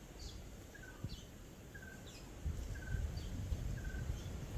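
A bird calling over and over, a short two-part call repeated about once a second, over a low rumble.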